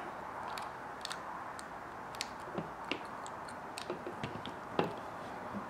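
Irregular small clicks and taps of plastic and metal RC axle parts being handled as a driveshaft is pushed back into an Axial Wraith axle housing, with one louder knock near the end.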